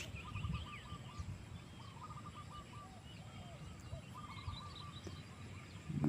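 Birds calling: short series of quick repeated chirps, several times over, with a steady low rumble beneath.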